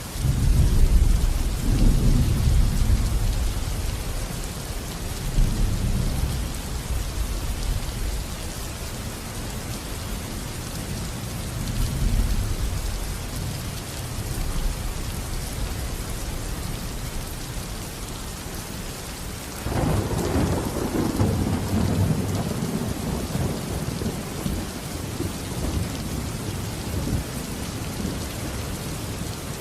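Steady rain hissing on surfaces during a thunderstorm, with rolling thunder. A deep rumble sets in at the start and rolls on for several seconds, a lighter rumble swells near the middle, and a sharper, louder clap comes about two-thirds through and rolls away.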